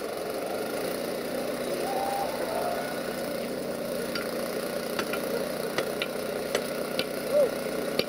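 Passenger train pulling away, its locomotive's engine running steadily. A string of sharp clicks from the wheels over rail joints comes in the second half, with a few brief squeals.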